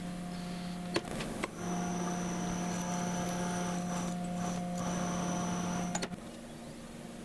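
Metal lathe running with a steady hum. The hum breaks off abruptly about a second and a half in and changes to a quieter, slightly different hum a little after six seconds.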